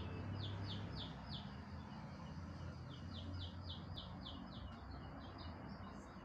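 A bird chirping in quick series of high, downward-sliding notes, about three a second, in two runs with a pause of about a second and a half between them. A steady low hum lies underneath.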